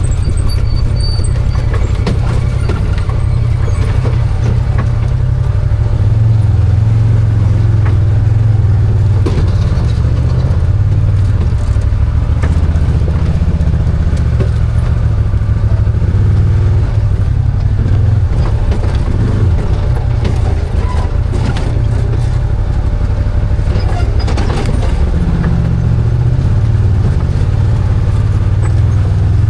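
Arctic Cat Wildcat 1000 side-by-side's V-twin engine running steadily under way on a trail, with scattered knocks and rattles.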